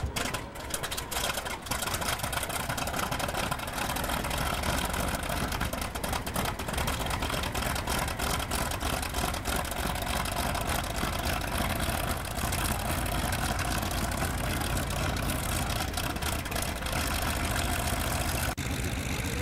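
Grumman F8F Bearcat's Pratt & Whitney R-2800 eighteen-cylinder radial engine idling just after start-up. It runs unevenly, with knocks, for the first couple of seconds, then settles into a steady, low, rhythmic idle.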